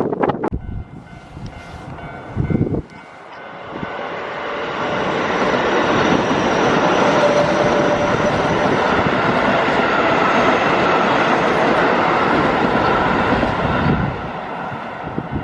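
Keio Line electric train passing over a level crossing: the rumble of wheels on rails builds from about three seconds in, stays loud and steady for about eight seconds, then drops away near the end. Wind buffets the microphone in the first few seconds.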